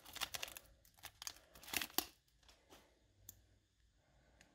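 Foil booster-pack wrapper crinkling and crackling as it is peeled away from the trading cards, mostly in the first two seconds, followed by a few faint clicks as the stack of cards is handled.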